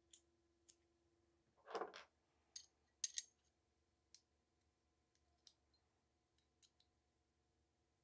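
Small aluminium quick-release rail mount and Picatinny rail handled together. A short scrape comes about two seconds in, then sharp metal clicks, two loud ones close together about a second later. A few faint ticks follow.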